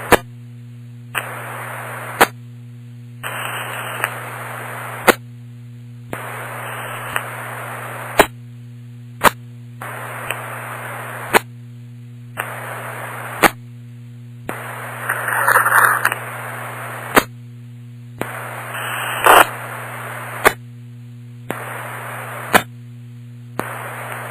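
Police radio scanner static: bursts of hiss about a second long that start and stop with sharp clicks and repeat roughly every two seconds, over a steady low hum. About fifteen seconds in there is a louder burst of static, and a sharp crack follows a few seconds later.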